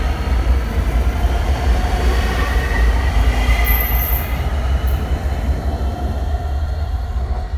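ÖBB class 4746 (Siemens Desiro ML Cityjet) electric multiple unit pulling away, with a loud low transformer hum under steady whining tones from the traction equipment and running noise from the wheels. A brief high squeal comes in about three and a half seconds in, with a shorter one about a second later, and the noise eases off near the end as the train moves away.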